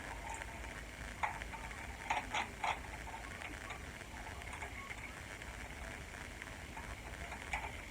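Light clicks and taps of small metal parts of a powder-measure linkage kit being handled and fitted, with three quick clicks a little over two seconds in and single clicks about a second in and near the end, over a faint steady hum.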